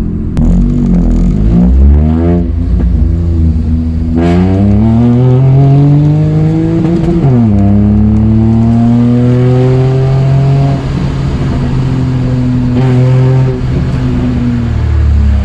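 Toyota Aygo's engine heard from inside the cabin while driving, climbing in pitch under acceleration and dropping sharply at a gear change about seven seconds in, then pulling steadily. A heavy low rumble runs underneath: engine vibration carried into the car through a newly fitted solid gearbox mount.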